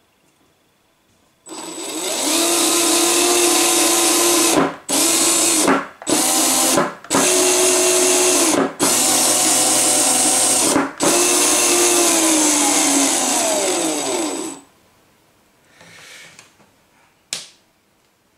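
Geared DC drive motors of a combat robot spinning up under radio control through their speed controllers: a motor-and-gear whine that rises in pitch, runs steadily with about five brief cut-outs, then winds down with falling pitch. The motors are not yet calibrated, and one runs faster than the other. A single click comes near the end.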